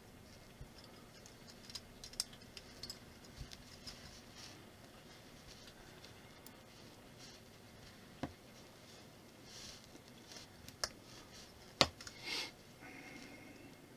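Small plastic building bricks being handled and snapped together: scattered faint clicks and scrapes, the sharpest click a little before the end.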